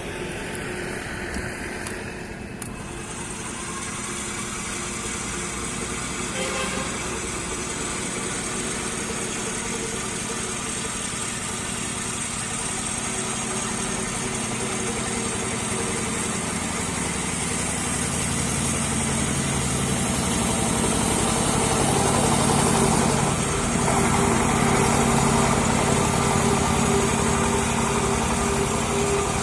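Portable water well drilling rig running steadily. Its machine hum grows louder, with a deeper tone coming in about two-thirds of the way through.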